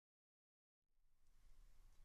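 Near silence: dead quiet at first, then faint room tone with a low hum fading in about a second in.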